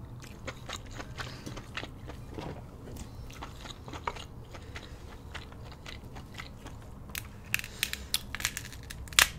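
Close-miked eating of a seafood boil in cheesy sauce: wet chewing and mouth sounds made of many small clicks, which turn into louder, sharper clicks and crackles in the last two seconds.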